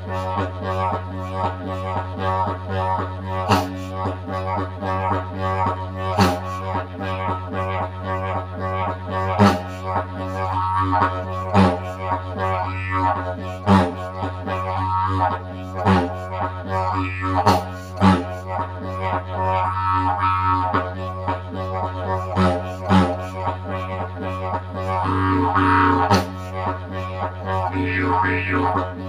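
Didgeridoo played as an unbroken low drone, its tone shifting as the mouth and voice reshape it, punctuated by sharp accents every couple of seconds.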